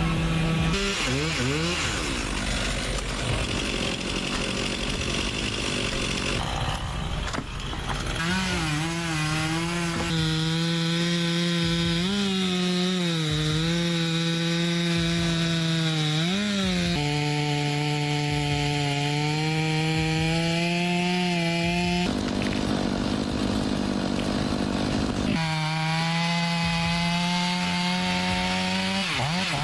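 Two-stroke chainsaw running at high revs and cutting wood, its engine pitch dipping and recovering several times as the chain loads up in the cut. The sound changes abruptly a few times.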